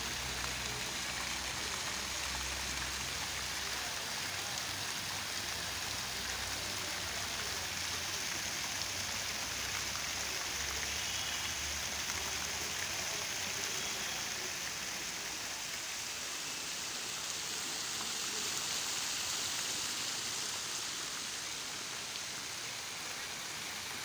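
Several small fountain jets spraying up and splashing back down onto a pond, a steady hiss of falling water.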